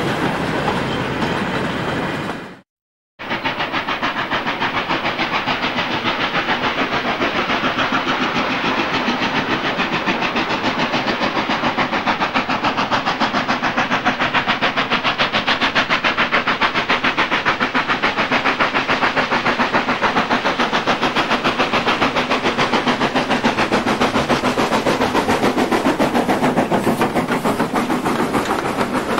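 Goods wagons rolling past with their wheels clattering, cut off suddenly. Then a steam locomotive working hard, its exhaust beating fast and evenly as it approaches and runs past hauling coaches.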